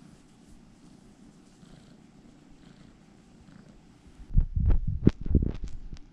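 Russian Blue mix kitten purring, a faint low steady rumble while being stroked. From about four seconds in, a series of loud low thumps and rumbles drowns it out.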